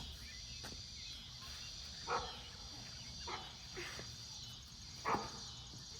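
A dog barking about five times, a second or so apart, over a steady high hiss.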